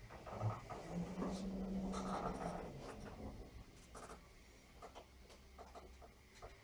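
Orona lift's sliding car doors closing: a thump, then the door operator motor humming with the panels scraping along their track for about two seconds, followed by a few faint clicks.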